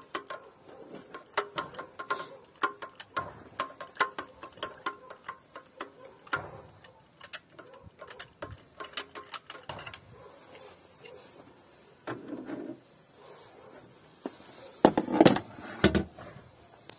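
Spark plug socket wrench turned in an engine's plug well, unscrewing a spark plug: a run of sharp metallic ratchet-like clicks, several a second. A few louder knocks near the end as the tool comes out of the well.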